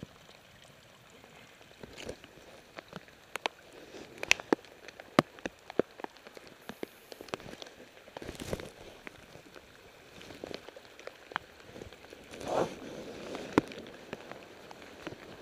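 Light rain: scattered drops ticking irregularly on hard surfaces close by, over a faint steady patter, with two short louder swishes, one about midway and one about three-quarters through.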